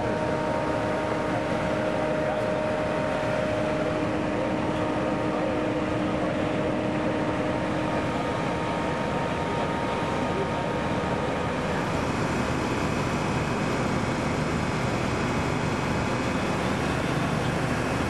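Steady drone of fire-engine motors and pumps running, with a steady hum of several tones that gives way to a lower hum about ten seconds in.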